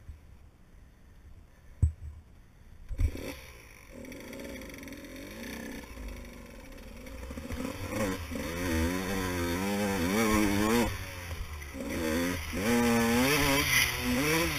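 Enduro motorcycle engine being ridden, its pitch rising and falling again and again with the throttle and growing louder from about halfway in. A couple of sharp knocks come near the start, before the engine sound builds.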